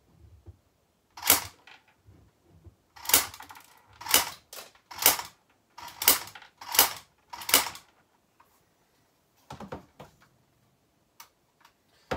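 CYMA CM125s MOSFET-edition electric airsoft pistol firing on single shot: seven sharp shots, roughly a second apart, then a few faint clicks near the end.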